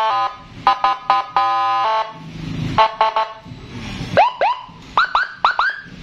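Custom Whelen-style 60-watt electronic police-escort siren playing through a horn speaker, switched between tones: a string of short horn blasts and one longer blast, then rising chirps, two and then four quicker ones near the end.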